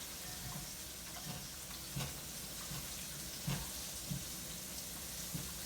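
Raw chicken strips being turned over by hand in buttermilk: soft, wet squishing knocks every half second or so, over a faint steady hiss.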